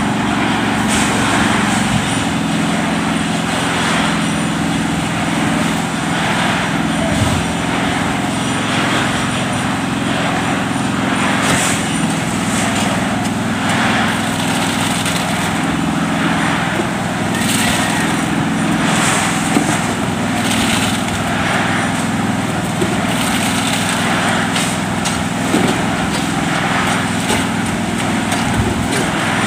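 Small engine running steadily, with a noisy swish or scrape repeating roughly every second and a half over it.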